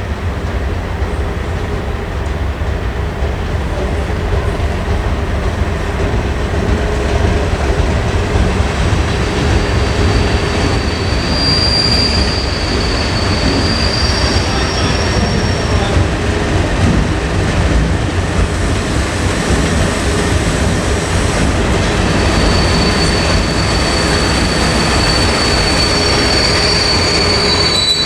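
Diesel locomotive moving slowly on the rails with a steady low engine rumble that slowly grows louder. High-pitched wheel squeal comes in about 11 seconds in and again from about 22 seconds.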